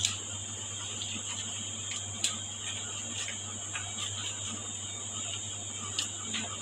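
Boning knife working along the bone of a veal hind leg: quiet cutting through meat with a few sharp clicks, over a steady hum.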